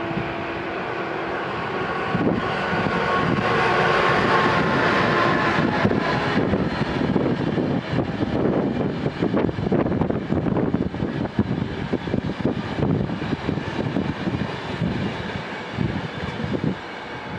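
Siemens Vectron electric locomotive passing with a whine from its traction equipment, then its passenger coaches clattering over the rail joints, the sound easing off near the end as the last coach goes by.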